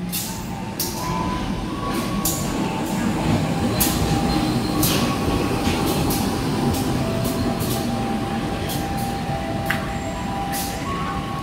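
A train passing close by, its wheels clacking sharply and irregularly over rail joints and points above a heavy rolling rumble, with faint intermittent wheel squeal.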